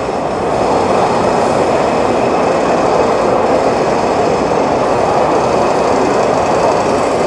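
Loud, steady hubbub of a crowded exhibition hall: many voices blend into one din, with faint steady high tones running underneath.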